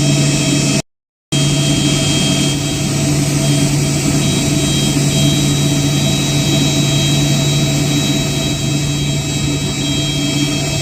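Jet airliner engines running steadily: a constant hum with a high whine on top. The sound cuts out completely for about half a second, about a second in, then carries on unchanged.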